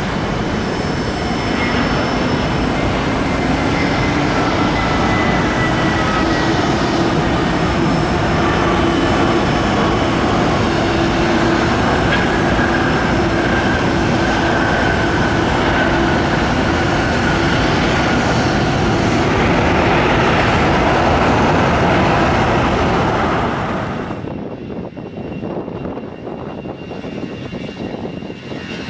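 Airbus A320 jet engines running loud, a dense roar with several slow whining tones gliding in pitch, growing gradually louder over most of the stretch. About four seconds before the end it drops abruptly to a quieter, thinner jet engine sound.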